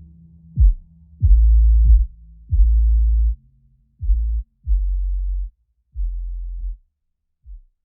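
Electronic background music: deep bass notes, each struck with a falling kick-drum sweep, getting quieter in steps and dropping out near the end.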